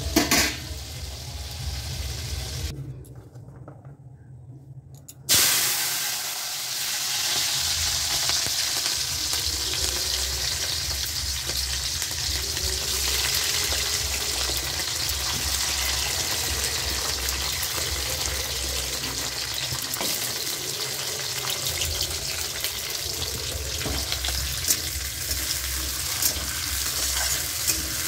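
Green beans and carrot pieces frying in hot oil in a metal kadai: a sudden loud burst of sizzling about five seconds in, then steady sizzling, with a few clicks of a spatula against the pan near the end.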